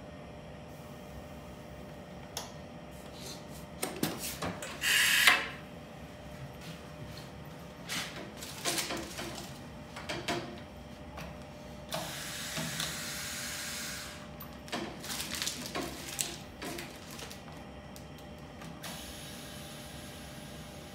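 Clicks and knocks of controls being worked on an anaesthetic machine and a wall-mounted suction regulator. There is a short loud hiss of gas about five seconds in and a steadier hiss lasting about two seconds around the middle. Another hiss starts near the end as the suction regulator is turned.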